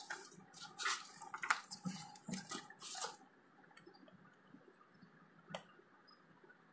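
Small paperboard box being pried open by hand: a quick run of scratchy scrapes and rustles as the taped flap is worked loose over the first three seconds, then a single click a little after five seconds.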